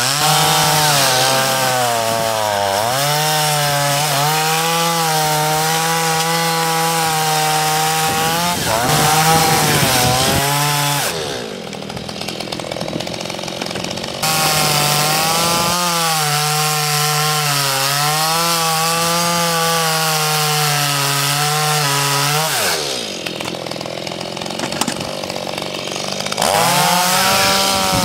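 Stihl MS211 two-stroke chainsaw running under load as its freshly sharpened Oregon PowerSharp chain cuts through a stack of firewood logs. It drops back to idle twice between cuts, about eleven seconds in and again past twenty seconds, and revs back up each time.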